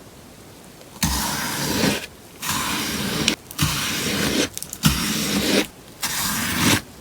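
Melamine sponge being cut with crisp, crunchy strokes. After about a second of quiet come five cuts, each lasting just under a second, with short pauses between them.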